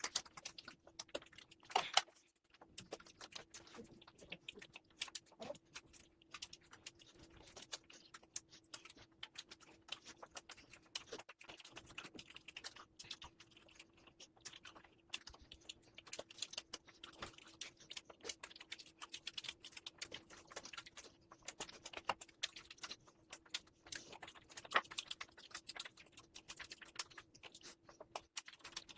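Close-up eating sounds of mutton fat curry with rice: a rapid, irregular run of wet clicks and smacks from chewing and the mouth, over a faint steady hum.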